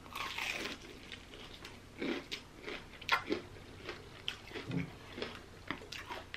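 A crunchy bite into the crisp crust of Popeyes fried chicken, followed by chewing with a string of sharp crunches.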